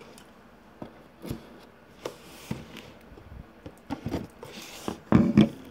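Opening the cardboard box of an Xbox One controller by hand: scattered light scrapes, taps and rustles of the packaging, with a louder scrape and rustle about five seconds in.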